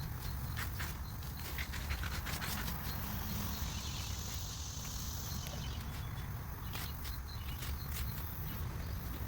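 Rustling and light irregular clicks of soil and potatoes being handled, over a low steady rumble.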